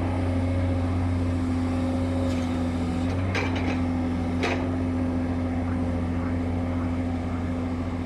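Excavator's diesel engine running at a steady speed, a constant low drone, with a few short sharp knocks about three and a half and four and a half seconds in.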